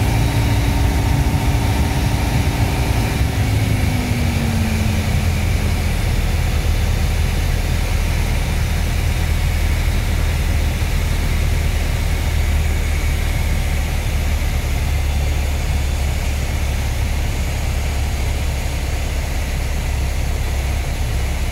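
Cabin noise of a Piper PA-28 single-engine light aircraft landing: the piston engine and propeller drone, with the pitch falling about three to five seconds in as power is pulled back, then a steady low drone with air rushing past through the flare and rollout.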